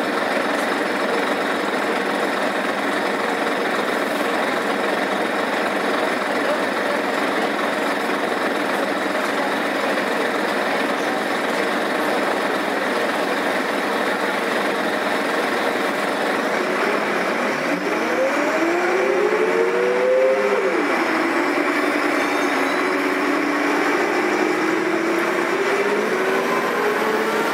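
Karosa B941 articulated city bus engine running as the bus drives, a steady rumble. About two-thirds of the way in, a whine rises in pitch, drops suddenly, then holds lower before starting to climb again near the end.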